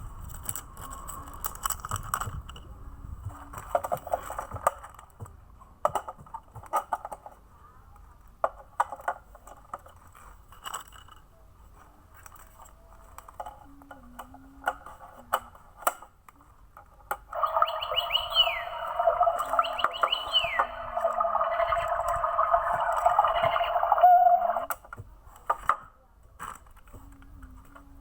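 Clicks and rattles of a plastic toy and its cage being handled, then, about two-thirds of the way in, a battery-powered toy bird's electronic chirping for about seven seconds, with rising chirps over a dense buzzy tone, which cuts off suddenly.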